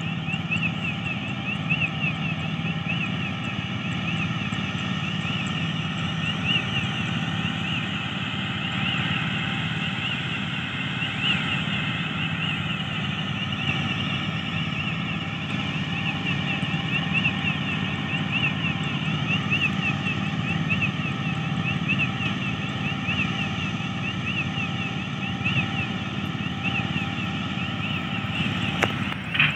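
Steady drone of heavy construction machinery running, with short high chirps repeating about once a second over it.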